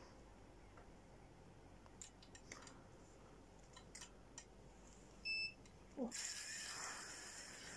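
Faint scattered clicks, then a short electronic beep about five seconds in. About a second later the fishing reel's drag starts running in a steady high hiss as the hooked cod takes line.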